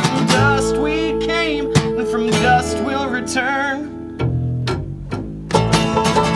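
Acoustic country band playing: strummed guitar under a wavering, held melody line. The music drops quieter about four seconds in, then the full band comes back in near the end.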